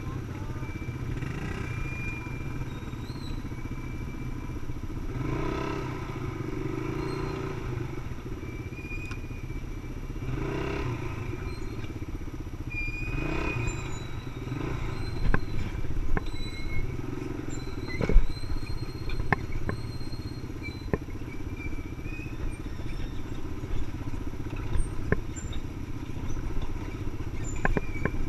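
ATV engine running at low trail speed, with the throttle opened up three times in the first half. From about halfway on there are scattered sharp knocks and rattles as the quad goes over rough ground.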